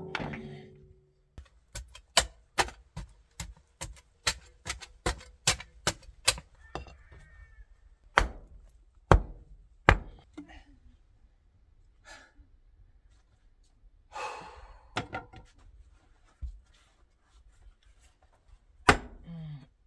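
Hammer blows on stone paving as the stones are tapped and set into place: sharp knocks about two a second at first, then fewer and irregular, with a brief scrape in the middle.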